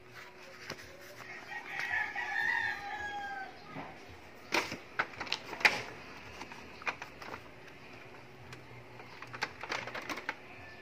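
A rooster crows once, a held call about two seconds long that falls away at its end. Then come sharp clicks and knocks of paper being laid on a Brother DCP-T700W's scanner glass, and again near the end as the scanner lid is lowered.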